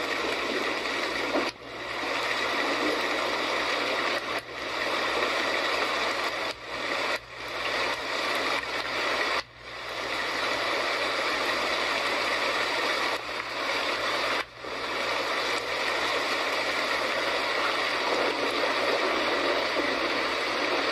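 Rain falling steadily, an even hiss, with several sudden brief drops in level.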